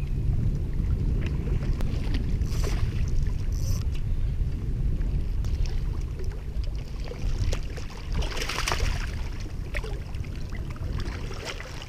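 Water splashing and sloshing in shallow water as a hooked flounder thrashes and is grabbed by hand, over a steady low rumble; the biggest splash comes about eight and a half seconds in.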